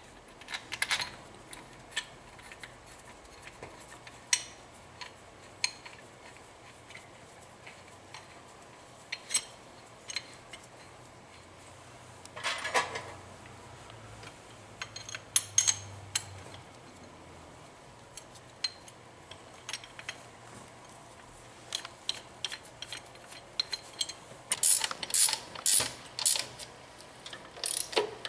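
Metal clinks and clicks of bolts and a steel mounting plate being handled and fitted against the engine, scattered through, with a run of quicker clicking near the end.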